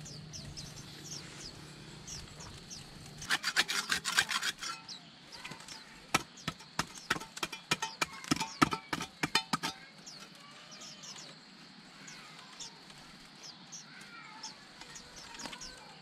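A small hand hoe chopping and scraping into dry, stony soil: a quick run of strikes a few seconds in, then a longer run of strikes, with small birds chirping throughout.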